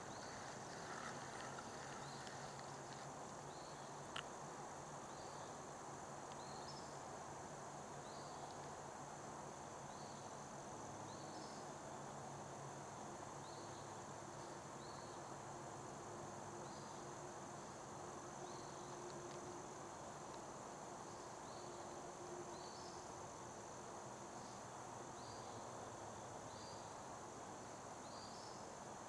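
Insects calling in the fall evening: a faint steady high drone with short chirps repeating about once a second. A single sharp click about four seconds in.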